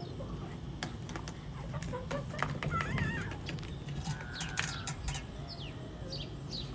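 Small birds chirping, with short falling chirps toward the end, among scattered sharp clicks and taps, over a steady low rumble.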